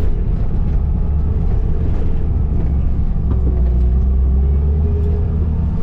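Skid steer engine running steadily under load, a heavy low hum with a faint held whine joining in the middle.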